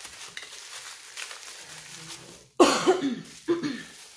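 Bubble wrap rustling softly as an item is unwrapped. About two and a half seconds in, a person coughs loudly twice.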